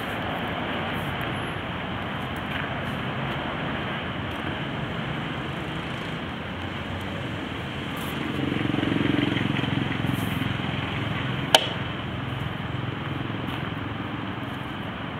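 Steady background traffic noise, swelling louder for a couple of seconds in the middle, with one sharp click near the end.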